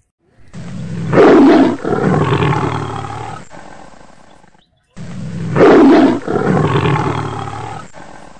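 A big cat's roar, the identical recording heard twice in a row. Each starts with a deep rumble, swells to its loudest within about a second, then runs into a second, longer call that fades over a few seconds. Both begin and stop abruptly out of dead silence, like a dubbed-in sound effect.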